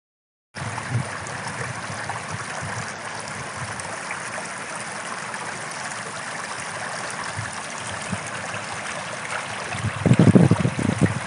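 Small stream running and babbling over stones in a shallow, grassy channel, a steady rush of water that starts abruptly about half a second in. A louder low rumble comes in near the end.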